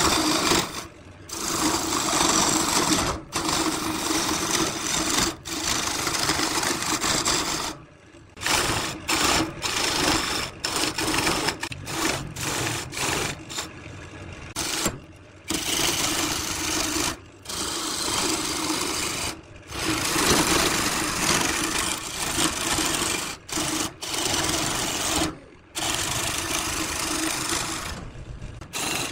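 Wood lathe running with a steady hum while a turning tool cuts into the spinning wooden vase blank, a rough scraping sound that comes and goes, broken by many short gaps.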